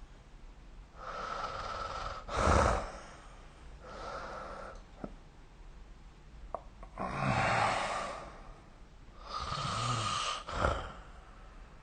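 A sleeping person snoring through about four breaths: rough, rasping snores, the later ones with a low buzz, two of them ending in a short sharp burst of breath. A few faint clicks fall in the pause between.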